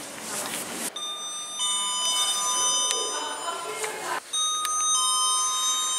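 Electronic lift arrival chimes: two-tone ding-dong chimes, a higher note followed by a lower one, each ringing steadily. About a second in one lift's chime sounds, and after a cut about four seconds in another lift's two-tone chime begins.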